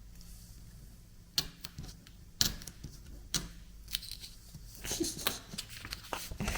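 Washi tape handled on a 3D-printed plastic cutter: a few sharp clicks about a second apart, then a spell of rustling and ripping near the end as the tape is pulled and torn off against the cutter's edge.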